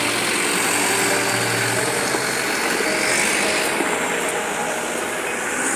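Diesel engine of a Mitsubishi Colt Diesel dump truck running as the truck moves off. Its steady engine note drops away about two seconds in.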